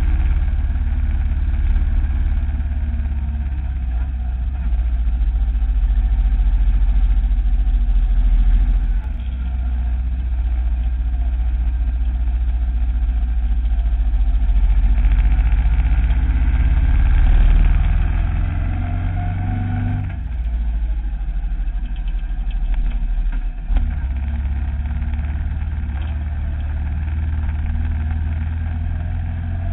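Motorcycle engine running while the bike rides along, under heavy wind rumble on the camera's microphone. The engine note rises for a few seconds past the middle, then falls away about two-thirds of the way through.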